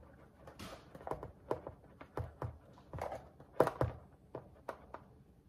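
Flour being poured from a plastic container into a plastic bowl: a soft pouring hiss with about a dozen irregular light taps and knocks.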